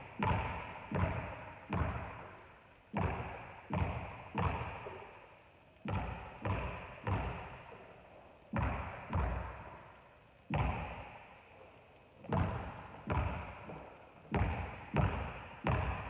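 A basketball bouncing on a hardwood gym floor in slow dribbles. The bounces come in runs of three or four, with short pauses between runs, and each one rings on in the hall's echo.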